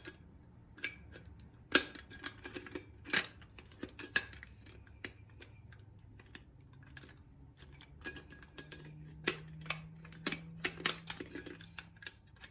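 Small metal camping stove parts and cookware being handled: irregular clicks, taps and light clinks of metal on metal.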